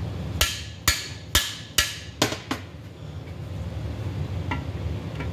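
Hammer blows on a cam bearing driver bar, six sharp metallic strikes about two a second, driving a cam bearing into the camshaft tunnel of a Pontiac 400 engine block.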